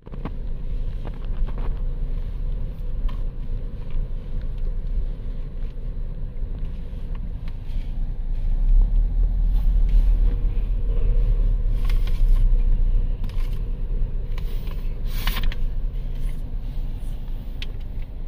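Car driving at low speed, heard from inside the cabin: a steady low rumble of engine and road noise that grows louder for a few seconds in the middle.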